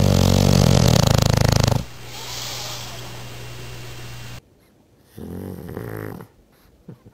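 English bulldog snoring in its sleep: a loud rattling snore for about two seconds, then a quieter drawn-out breath with a low hum. After a cut about four seconds in, a shorter, quieter snore from a sleeping pug.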